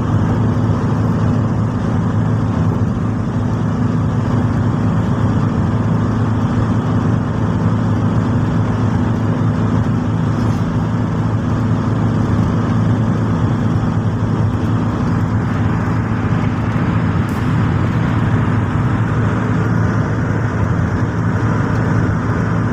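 Steady road and engine noise inside a car's cabin while cruising at highway speed, an unchanging low drone.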